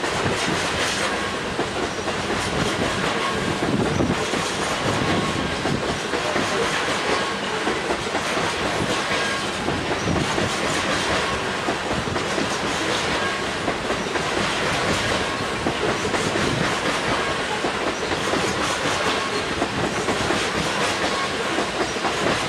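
Loaded BNSF coal train's freight cars rolling steadily past, the wheels clicking rhythmically over the rail joints under a continuous rumble, with faint steady ringing tones from the wheels and rails.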